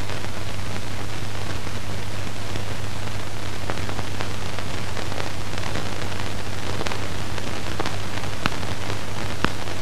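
Steady hiss and low hum of an old film soundtrack, with a few faint clicks of crackle, two more distinct near the end.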